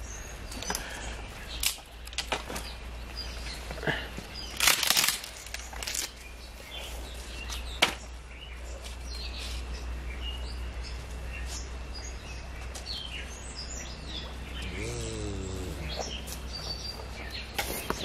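Scattered knocks and clicks of close handling, loudest about five seconds in, with small birds chirping throughout.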